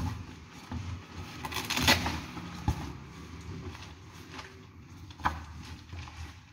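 Rustling handling noise from a fabric laptop backpack being opened and rummaged through by hand, with a few sharp clicks and knocks, the loudest about two seconds in and another about five seconds in.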